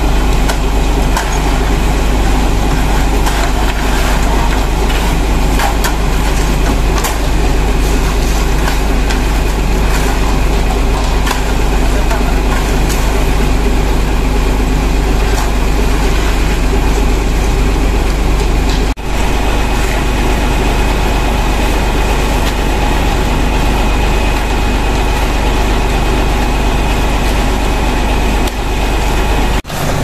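A concrete mixer truck's diesel engine running steadily close by, with shovels and rakes scraping and clinking in wet concrete.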